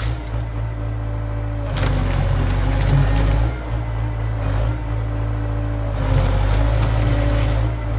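Tractor engine running steadily under load, powering a Hypro 755 tractor-mounted processor. Bursts of harsher mechanical noise from the processor head come about two seconds in, again around five seconds and again from about six seconds to near the end.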